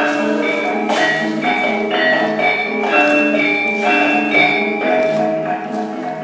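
Javanese gamelan music for a topeng mask dance: mallet-struck metallophones and gongs playing a steady run of ringing notes.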